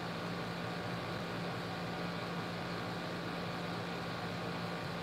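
Room tone: a steady low hum under an even hiss, unchanging throughout.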